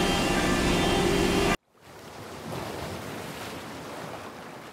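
Steady workshop machinery hum with a few held tones, cut off abruptly about a second and a half in. Then a soft surf-like wash of ocean waves swells and slowly fades.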